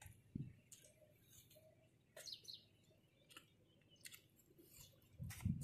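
Faint chewing of a mouthful of fresh fruit, close to the microphone: scattered, irregular mouth clicks and small crunches. A low rumbling handling noise comes in near the end.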